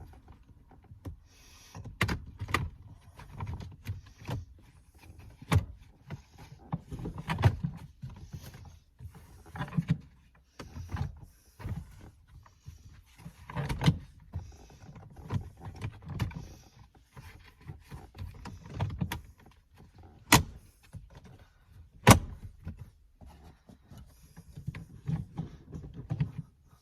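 Hands working on a car's shifter trim: plastic and leather parts rubbing and shifting, with scattered sharp clicks and knocks of pieces being pressed and fitted.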